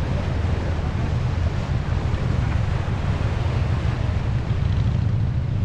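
Wind buffeting the microphone in a steady low rumble, over the continuous wash of ocean surf breaking on rocks.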